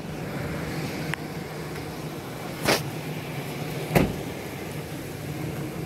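A vehicle engine idling with a steady low hum, with a short knock a little before three seconds in and a louder thump at about four seconds.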